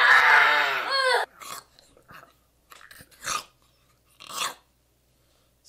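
A loud, wordless voice roaring like an animal for about a second, cut off abruptly, followed by a few short, faint breathy hisses.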